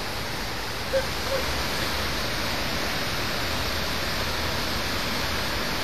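Steady rushing of river rapids over rocks, a continuous even noise of fast-flowing water.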